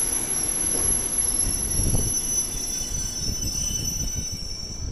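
Passenger train braking as it pulls in along the platform: low rumble of the wheels under a steady high-pitched brake squeal, which stops near the end.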